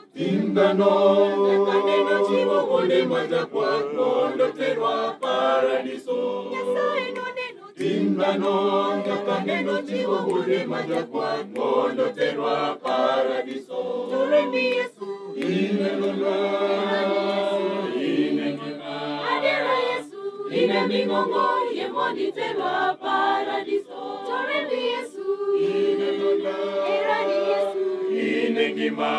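Church choir of many voices singing a hymn without instruments, in long phrases with brief pauses between them.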